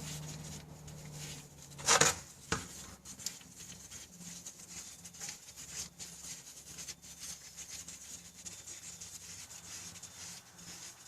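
Hand tools working the rear differential drain plug loose: a sharp metal clack about two seconds in, then a run of faint small clicks and scrapes as the wrench is turned.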